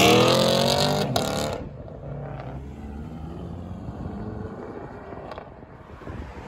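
A car engine accelerating hard, its pitch climbing, with a brief sharp break about a second in, then fading within a couple of seconds to a quieter low engine rumble.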